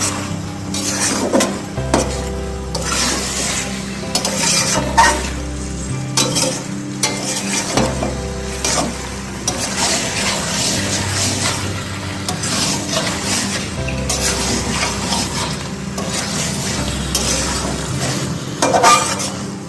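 Chicken pieces and spice paste sizzling in hot mustard oil while a spatula stirs and scrapes the pan with repeated strokes. The meat is being dry-fried (kosha) in the spices without added water.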